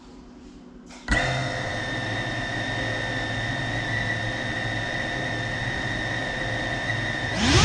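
A CineLog35 3.5-inch cinewhoop FPV drone's brushless motors arm and spin up about a second in, then run at idle with a steady, high whine. Just before the end they rise sharply in pitch and level as the throttle comes up for takeoff.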